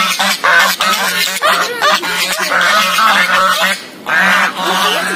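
Several waterfowl honking over one another in quick, short calls, with a brief lull about four seconds in before the calling picks up again.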